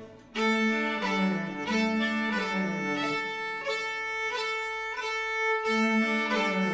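Background music: a slow bowed violin melody in long held notes over a lower sustained part, coming in after a brief gap.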